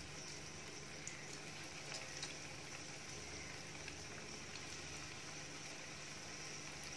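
Bread slices frying in hot oil in a steel kadai: a steady sizzle with a few small crackles as more slices are laid into the oil.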